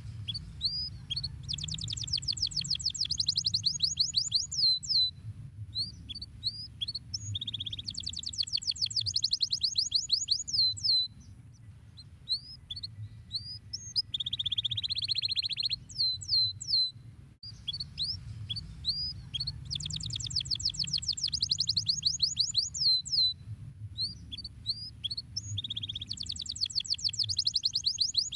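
Domestic canary singing: rapid high trills and downward-sweeping whistled notes, with a lower buzzy rolling phrase about halfway through. A steady low hum runs underneath.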